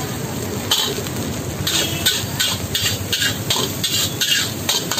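Flat metal spatula scraping and tossing rice against a large black wok, a quick stroke every half second or so, over a steady hiss of frying and the burner.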